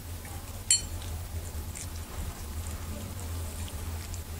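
Cat eating close to the microphone: faint wet chewing and licking, with one sharp click under a second in.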